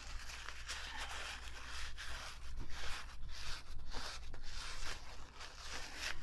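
A cloth wiping a sewing machine part clean: a run of quick rubbing strokes, one after another.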